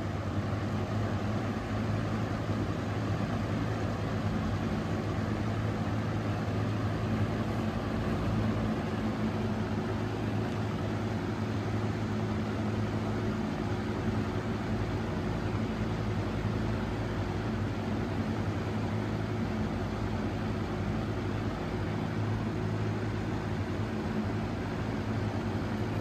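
Box fan running steadily on an old full-size McMillan shaded-pole motor: a constant low electrical hum under the rush of air off the spinning blades.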